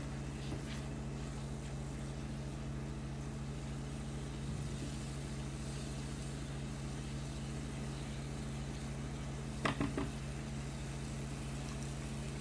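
Steady low electrical hum, with a short clatter of two or three quick knocks about ten seconds in, like a cooking utensil striking a pan.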